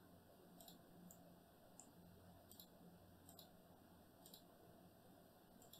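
Faint computer mouse clicks, about eight at uneven intervals, over near-silent room tone with a low hum.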